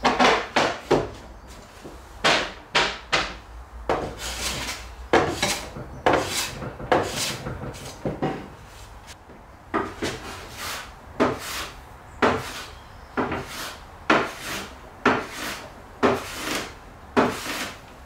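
Metal bench plane taking shavings off a wooden frame: a steady run of short swishing strokes, one to two a second, each starting sharply and trailing off.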